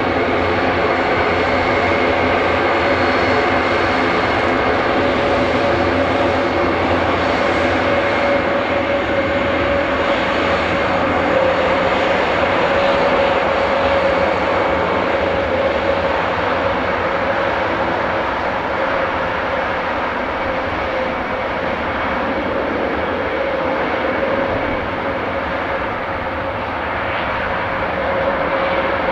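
Four turboprop engines of an Airbus A400M Atlas running as the aircraft taxis, a steady drone of propeller and turbine hum with a high whine held on top.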